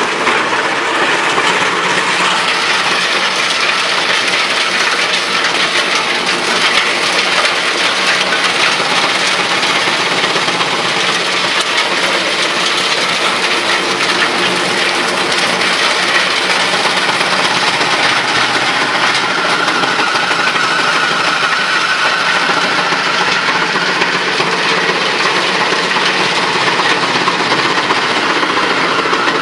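TY215 drum wood chipper running under load: a loud, steady machine drone with a dense crackle of branches and stalks being chipped by the drum.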